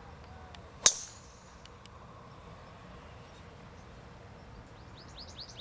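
A golf tee shot: one sharp, loud crack of club on ball about a second in, with a brief ringing after it. Near the end, a quick run of high bird chirps.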